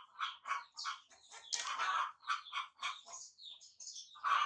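Baby macaque squealing in a rapid run of short, high-pitched cries, several a second, easing off a little past three seconds in and rising again near the end.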